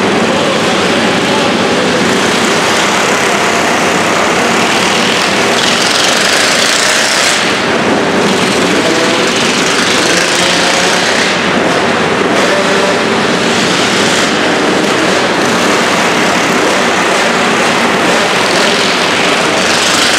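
Mini bike engines racing around a dirt flat track, a loud continuous buzz whose pitch wavers as the riders throttle on and off through the turns.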